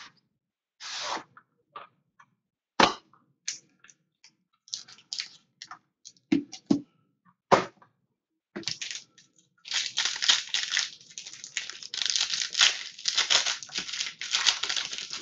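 Cardboard trading-card box being opened with scattered sharp crackles and snaps, then a foil-wrapped card pack handled in the hands, crinkling continuously from about ten seconds in.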